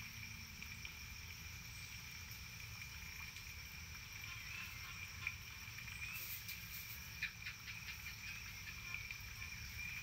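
Insects droning steadily at one high pitch, over a low rumble, with a few short bird chirps in the second half.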